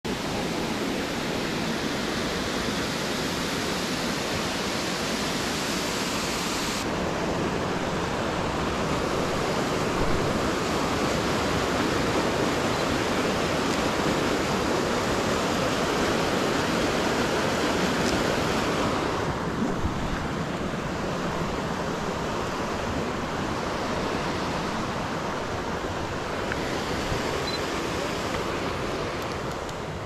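Steady rush of falling and running water from a forest waterfall and creek. The sound changes abruptly about 7 and 19 seconds in.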